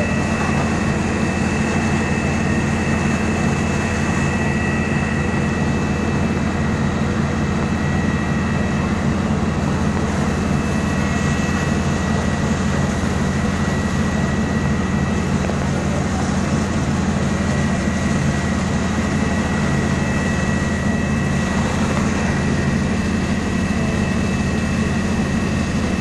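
Fire engine diesel engines running at steady high revs to drive the water pumps feeding the hoses and aerial ladder, a continuous low hum with a thin high whine over it.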